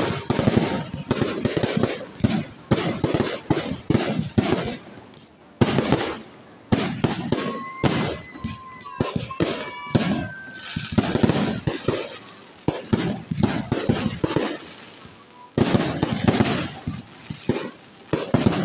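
Fireworks display: aerial shells bursting in rapid, dense volleys of bangs and crackles, with a few brief lulls between barrages.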